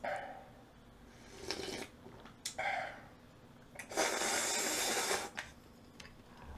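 A person slurping jjamppong broth straight from the bowl: a few short sips, then a longer, louder slurp about four seconds in that lasts over a second.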